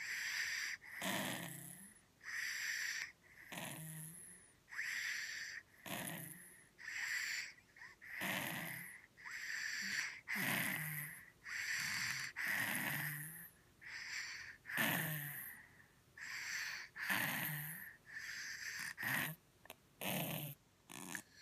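Snoring through a stuffy, blocked nose: a steady run of noisy breaths about one a second, each with a whistling hiss.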